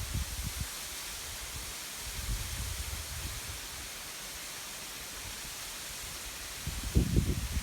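Steady rushing of a waterfall, an even hiss, with low buffeting of wind on the microphone that comes and goes and is strongest near the end.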